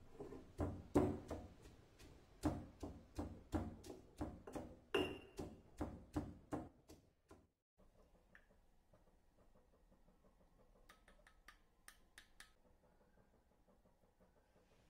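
Stone pestle pounding garlic and greens in a green stone mortar, steady knocks about three a second. The knocks stop about halfway through, leaving only a few faint clicks.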